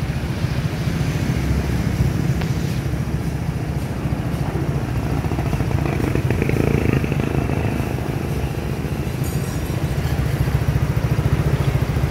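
Honda SH 2020 scooter's single-cylinder engine idling steadily through an aftermarket 4Road exhaust with a stainless-steel header.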